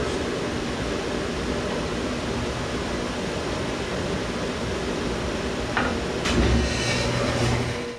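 Dust collector running: a steady rush of air drawn through the hose. About six seconds in there is a knock, and a deeper rumble joins for the last two seconds.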